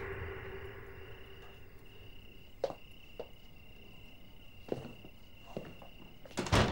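A cricket trilling steadily, with a few soft footsteps and knocks as people come in at a door, and a louder knock near the end.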